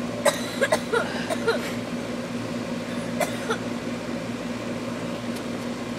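Air-conditioner unit running with a steady hum. A few short, sharp sounds come in the first second and a half and once more about three seconds in.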